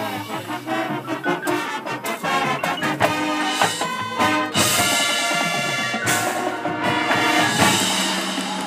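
Marching band playing a brass passage. It opens with quick short notes, then moves into loud held brass chords from about halfway through.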